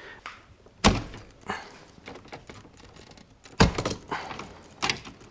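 Plastic knocks and clicks of a double-pole circuit breaker being worked loose from the panel by hand: two sharp knocks, about a second in and again nearly three seconds later, with fainter clicks between.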